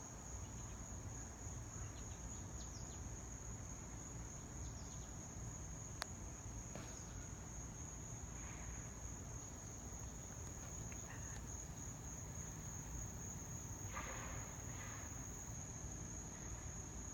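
Insects keeping up one continuous high-pitched trill, with faint short bird calls now and then from the flock and a single sharp click about six seconds in.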